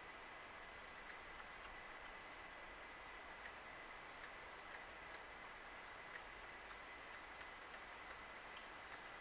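Faint, irregular high ticks, about one or two a second, over a steady low hiss and a faint steady high tone.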